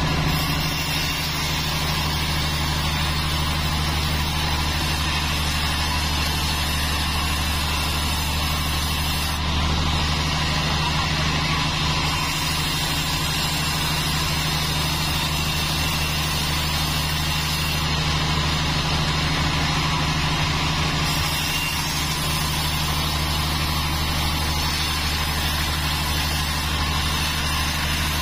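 A 36-inch band saw running steadily with a low, even hum and whir while a teak log is fed along the blade.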